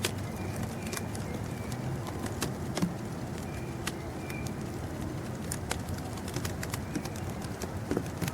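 Birds giving a few short, faint chirps over a steady low rumble, with scattered sharp clicks.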